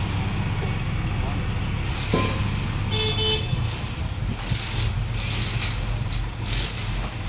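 Vehicle engine running steadily, with a short horn toot about three seconds in and a few scattered knocks.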